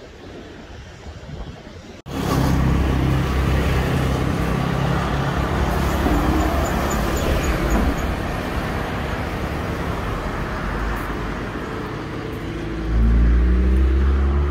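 A motor vehicle's engine running, with road noise, cutting in abruptly about two seconds in after a quieter stretch and swelling louder and deeper near the end.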